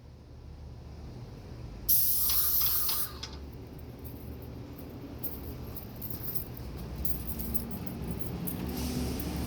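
Airless paint sprayer gun hissing as it lays one spray pass, about two seconds in, lasting about a second. A low steady hum runs underneath, and faint clicks and rattles follow later.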